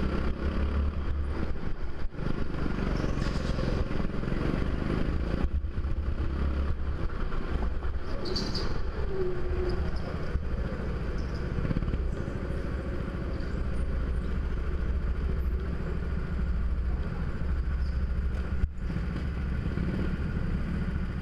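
Go-kart engine heard from on board, running steadily as the kart is driven round the track. A brief high squeal comes about eight seconds in.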